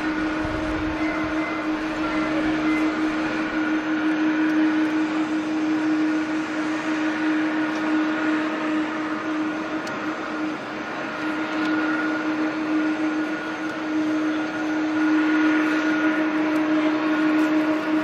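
Steady jet engine noise at an airport: a constant drone with an unchanging hum running through it.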